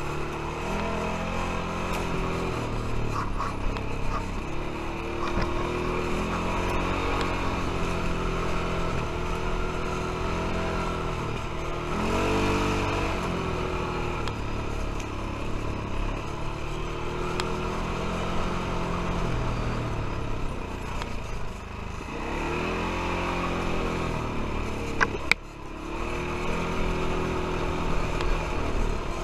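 Quad bike (ATV) engine running on a dirt trail, its pitch rising and falling again and again as the throttle is opened and eased. Near the end the engine note drops briefly and there is a sharp click.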